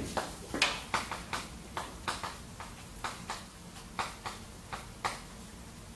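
Chalk writing on a chalkboard: a quick, irregular run of sharp taps and short scratches, about three a second, stopping about five seconds in.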